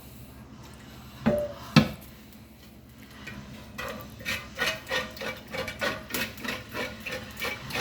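A utensil knocks twice on a cooking pot, then scrapes over and over across the pot's bottom, about three strokes a second, working up the browned bits to make gravy.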